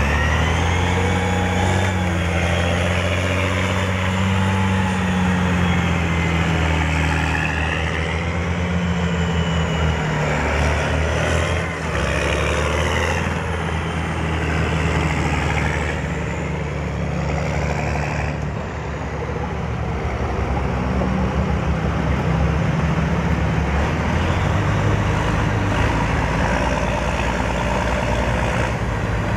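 Military vehicles, CVR(T) light tracked armour, driving past in a column. Engines run steadily with pitch rising and falling, under high whines that sweep up and down several times.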